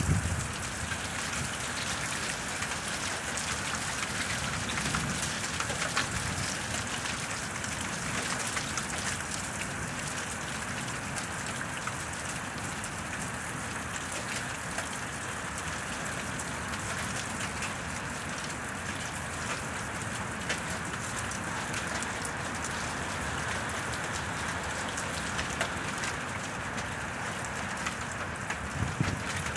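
Steady rain falling, an even hiss full of fine drop ticks, with brief low rumbles near the start and again near the end.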